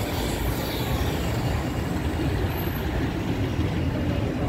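Busy city street traffic, led by the engine of a red double-decker bus passing close by. The noise is steady and sits mostly low down.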